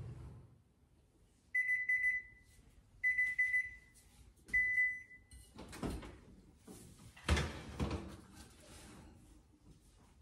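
Electric oven beeping three times, each a steady high beep about half a second long. A few seconds later the oven door drops open with a clunk, and the metal rack and foil baking pan clatter loudly as a pan of baked cinnamon rolls is pulled out.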